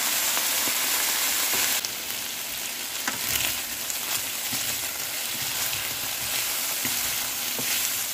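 Blanched chicken wings sizzling in hot oil in a stainless steel pan, stirred with a wooden spatula that scrapes and clicks lightly against the pan. The sizzle is strongest for the first couple of seconds, then settles to a steady frying hiss.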